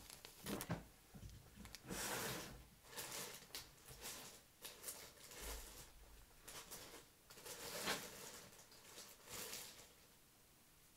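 Faint rustling and crinkling of fly-tying material packets being handled, a string of short scrapes about a second apart that dies away near the end.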